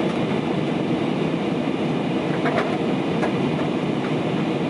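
Steady cabin noise of an Airbus A319 in flight: the engines and rushing air making an even low rumble through the fuselage, with a few faint ticks over it.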